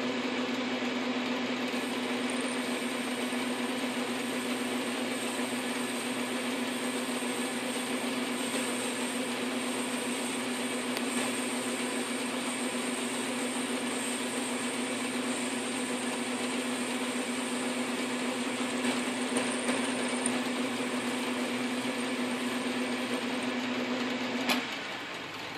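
South Bend 9-inch lathe running steadily under a cut as the tool turns down an aluminum pulley: a steady motor and belt hum with the hiss of cutting. Near the end it shuts off with a click and winds down.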